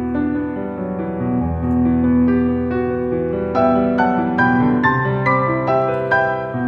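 Background music: an instrumental piano passage with no singing.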